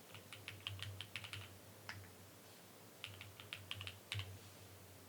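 Quiet typing on a mechanical keyboard: two short runs of quick keystrokes, each lasting about a second, with a single keystroke and a pause between them.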